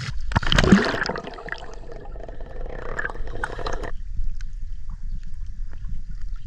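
Water splashing and gurgling in a swimming pool for about four seconds. Then it cuts abruptly to the dull, muffled rumble and faint clicks of sound heard underwater.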